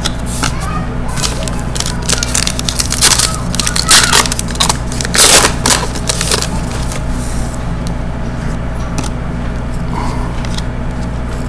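Crinkling and rustling of trading card packs and cards being handled: a dense run of short crackles for the first seven seconds or so, then lighter, sparser rustling over a steady low hum.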